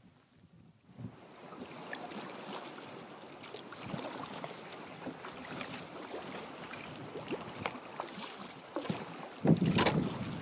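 Choppy water splashing and rushing against a sea kayak's hull as it moves through a tidal stream, with wind buffeting the microphone. It starts about a second in, with a louder splash near the end.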